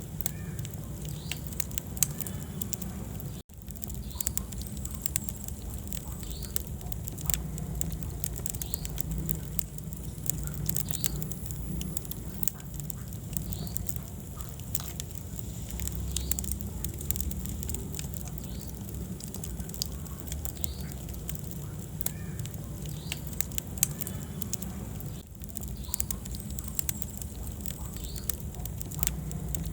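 Wood fire crackling in a fireplace: many irregular sharp pops and snaps over a steady low rumble of the flames. The sound drops out for a moment about three and a half seconds in.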